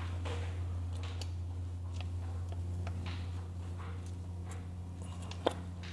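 Light metal clicks and scrapes of a screwdriver prying at a cover on a John Deere ProGator transmission case, with one sharper click near the end. A steady low hum runs underneath.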